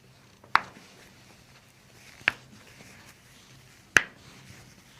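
Toe joints cracking under a chiropractic adjustment: three sharp pops, a little under two seconds apart.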